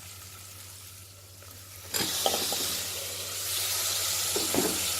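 Onion and ginger-garlic masala frying in a pressure cooker, starting to sizzle loudly about two seconds in as chopped tomato goes into the hot oil, with a few scrapes of stirring after.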